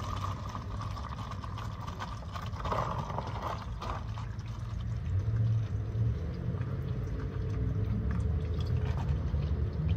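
Used engine oil draining in a thin steady stream from the oil pan of a 2007 GMC Yukon into a catch can during an oil change, with a low steady rumble underneath that grows a little louder about halfway through.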